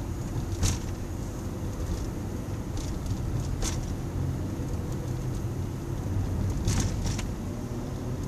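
Steady low rumble of engine and road noise heard inside the cabin of a car moving slowly through traffic, with a few short clicks scattered through it, the loudest about a second in.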